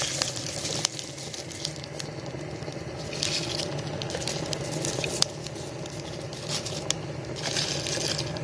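Fire burning in a rocket heater: scattered crackles and pops over a steady low rush, with a few hissing stretches.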